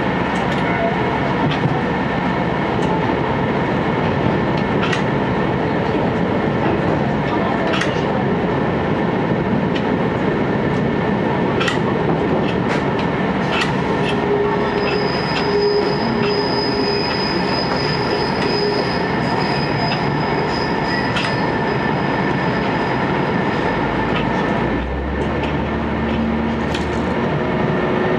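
Cabin noise of an Aizu Railway AT700 diesel railcar running along the line: a steady rumble of engine and wheels on rail, with scattered sharp clicks. A thin, high wheel squeal is held for several seconds past the middle, and near the end the running note dips briefly and a low hum comes in.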